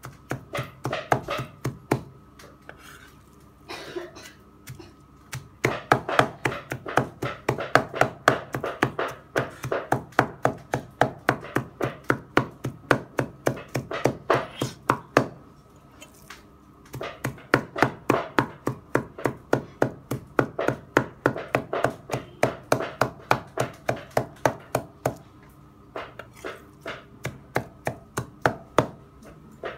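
Cleaver chopping raw pork and fat on a round chopping block, mincing it by hand: rapid, even knocks at about four strokes a second, in runs broken by short pauses a few seconds in, around halfway and near the end.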